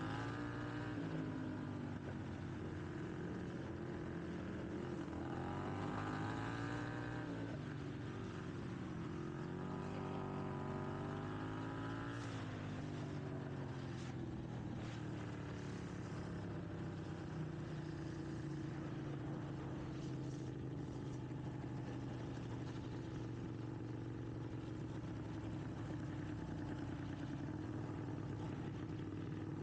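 Racing lawn mower engine running hard, its pitch rising and falling a few times in the first half as it speeds up and eases off, then holding steadier.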